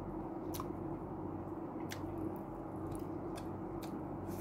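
A person chewing food, with a few short sharp clicks of lips and food scattered through, over a steady low hum in the room.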